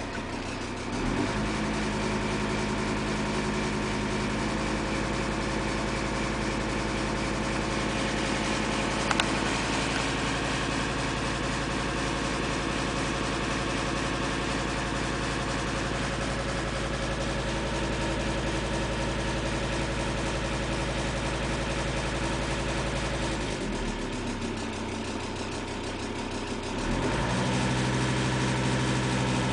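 Audi A6 2.5 TDI's five-cylinder turbodiesel running steadily, with the ticking noise that comes from the valve train. It runs quieter between about 23 and 27 seconds in, then louder again. The tick was caused by a damaged key on the crankshaft timing belt sprocket, which let the cam advance 6–8 degrees so the inlet valves touched the pistons.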